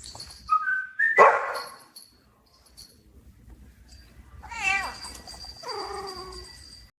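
A couple of short chirps and a sharp, hissy burst about a second in, then, after a quiet stretch, a drawn-out meow that falls in pitch about four and a half seconds in.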